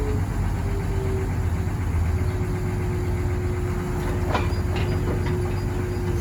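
Excavator engine running steadily, a low rumble with a constant whine over it. Three sharp clicks, about half a second apart, come near the end.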